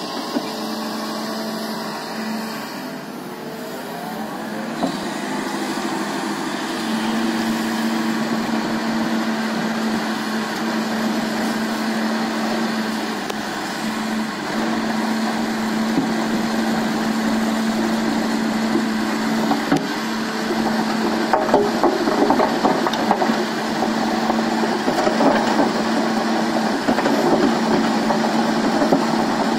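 Kobelco SK220 excavator's diesel engine running steadily while it hydraulically drives a Simex VSE30 screening bucket, a steady drone with a held tone. In the second half a gritty rattle of soil and stones tumbling in the turning screen drum grows over it.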